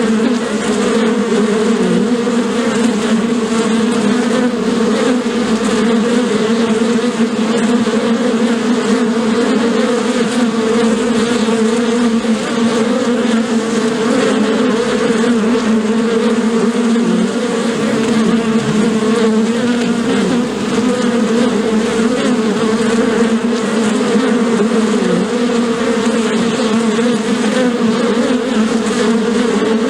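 Bees buzzing: a steady, continuous hum that wavers slightly in pitch.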